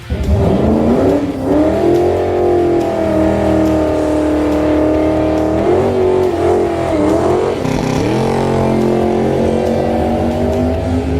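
Drag-race car engine launching and accelerating hard down the strip. It comes in suddenly and climbs steeply in pitch over the first couple of seconds, then runs at high revs, with brief dips and recoveries in pitch about six and eight seconds in.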